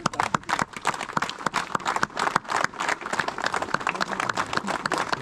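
Audience applauding: a dense, steady patter of many people's hand claps.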